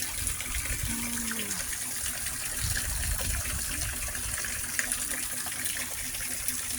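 Water pouring steadily and without let-up from a free-flowing water source, a constant gushing splash.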